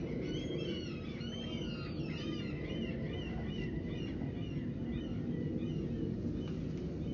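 Small birds chirping, with many quick arched notes in the first few seconds that thin out later, over a steady low background rumble.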